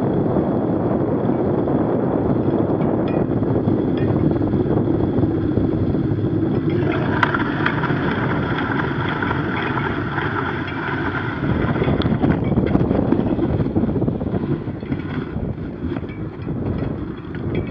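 Wind rushing over the microphone mixed with the rolling noise of a knobby bicycle tyre on an icy, snow-covered road. For a few seconds in the middle a higher hiss joins in, with scattered small clicks.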